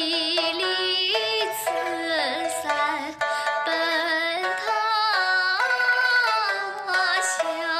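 A voice singing a mournful ballad in Chinese traditional style to a plucked string instrument, with long wavering notes that slide between pitches. The sung words tell of three years of famine at home, with wife and children scattered to other lands.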